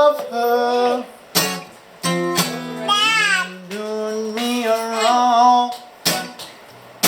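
A voice singing a slow blues with long held notes and a falling slide in the middle, over a strummed guitar; a few sharp strums stand out between the sung phrases.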